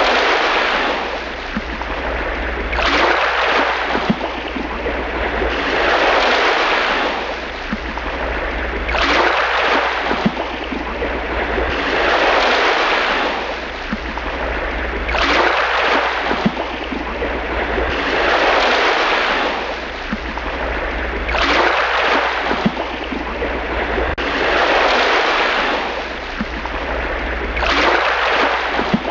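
Rushing, surf-like water noise that swells and fades about every three seconds, over a steady low hum.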